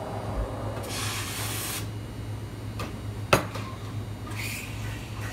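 Espresso machine steam wand hissing in a burst of about a second, then a sharp knock, then a shorter hiss as the wand is purged. A low steady hum runs underneath.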